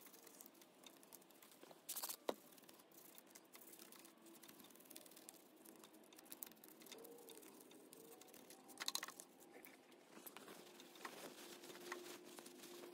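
Faint scratching and ticking of a toothbrush scrubbing grime and cleaner off a Honda CT70's stator plate and engine case, with two brief louder scrubbing bursts, about two seconds in and about nine seconds in.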